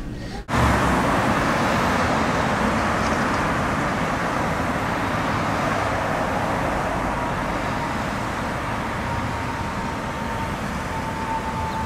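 Road traffic: cars and light trucks driving past one after another, a steady rush of tyres and engines that eases slightly. A faint high whine, sinking slightly in pitch, comes in over the last few seconds.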